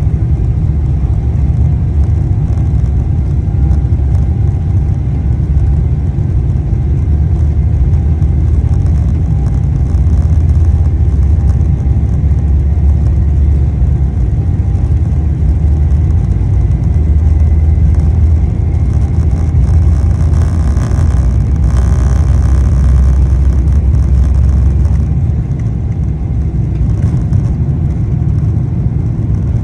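Boeing 777 twin jet engines at takeoff thrust, a loud steady rumble with a faint whine of tones above it. The heaviest low rumble eases about 25 seconds in.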